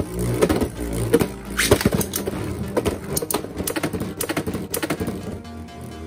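Metal Fight Beyblade spinning tops clicking and rattling as they strike each other and the plastic stadium, irregular sharp clacks coming thickest in the middle. Electronic background music plays underneath.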